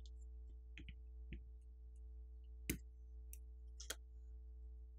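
A few small, sharp clicks as press-fit flex-cable connectors are popped off a smartphone's main board; the loudest click comes a little past halfway, and another about a second later. A faint steady hum runs underneath.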